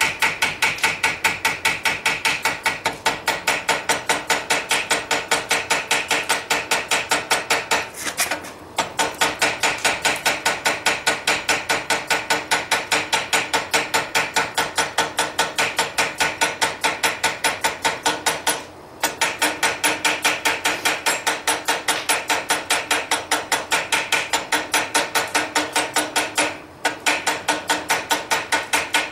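Quick, steady hand-hammer blows on a railroad spike over the anvil horn, about four a second, the steel anvil ringing after each strike. The hammering stops briefly three times.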